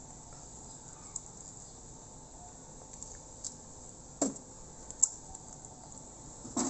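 Quiet steady background hiss with a few light taps and crinkles as foil seasoning sachets are squeezed out over a plastic bowl; two sharper clicks about four and five seconds in.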